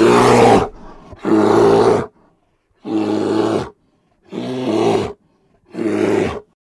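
Bear roaring five times in a row, each roar lasting under a second with short silent gaps between; the first is the loudest.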